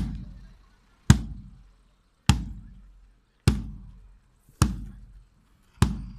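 Marching band drum beating a slow, even marching step: six single strokes a little over a second apart, with no melody playing.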